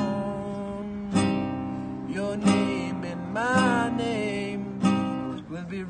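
Acoustic guitar being strummed, with a strong stroke about every second and chords ringing between them. A man's voice sings over it in a few short phrases.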